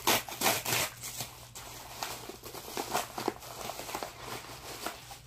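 Mail packaging rustling and crinkling as it is handled and opened by hand, with a burst of louder rustles in the first second and then quieter scattered crinkles and clicks.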